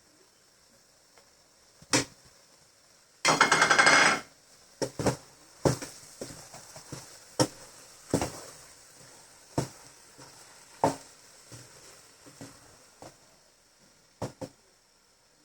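Kitchen utensils knocking against cookware: separate sharp clinks and knocks at uneven intervals, with a dense rattling clatter lasting about a second, a little after three seconds in.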